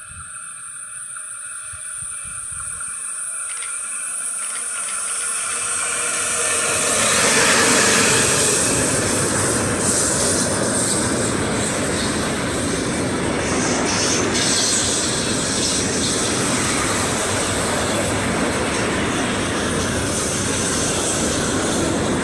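Freight train approaching and passing close by: the sound swells to its loudest about seven seconds in, then the wagons keep rolling past with a steady rolling noise and occasional clicks.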